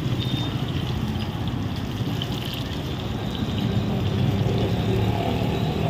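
Chicken cutlets deep-frying in a wok of hot oil: a steady sizzle and bubble, with a low rumble underneath.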